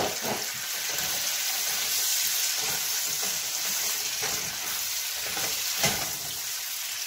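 Shredded chicken sizzling in hot oil in a nonstick pan while a spatula stirs and scrapes it through the garlic and onions. A few sharp knocks of the spatula against the pan, at the start and about six seconds in.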